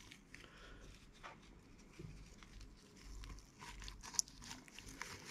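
Faint handling sounds of hands stuffing ginger and other aromatics into a raw duck: soft rustles and scattered small clicks, with one sharper click about four seconds in.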